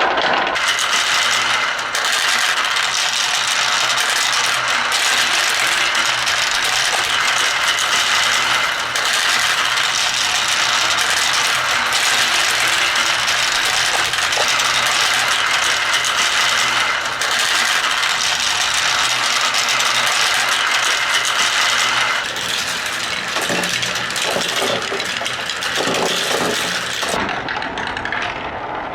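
Many marbles rolling and clattering down wooden marble run tracks in a dense, continuous rattle. After about twenty seconds it thins out into separate clicks and knocks.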